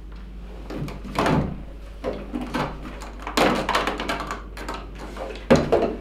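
Plastic Pinter 1 keg being twisted and worked onto its brewing dock: repeated rubbing and scraping of plastic on plastic in short spells, with a sharper knock near the end. The awkward fit makes it a struggle.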